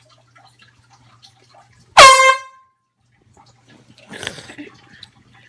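One short blast from a handheld canned air horn, about two seconds in, lasting about half a second. It is loud, with its pitch swooping up as it starts.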